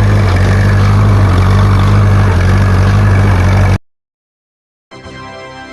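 Tractor engine running steadily while pulling a hay baler, cutting off abruptly about four seconds in. Near the end a fainter steady hum with several tones sounds for about a second.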